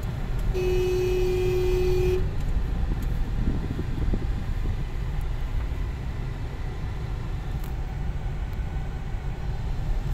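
Steady low rumble of a car's engine and tyres heard from inside the cabin while driving on a highway, with one steady vehicle horn blast of about a second and a half starting about half a second in.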